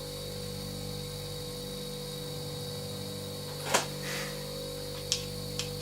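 Steady electrical hum, with one sharp click about two-thirds of the way in, followed by a brief hiss and two fainter ticks.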